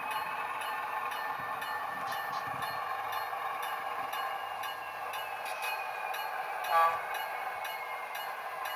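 Model diesel switcher's sound decoder playing a steady diesel engine sound through a small onboard speaker as the locomotive creeps along with a car, with one short, loud toot about seven seconds in.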